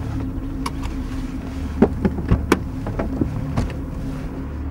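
Car engine running with a steady low hum. Several sharp clicks and knocks fall over it around the middle.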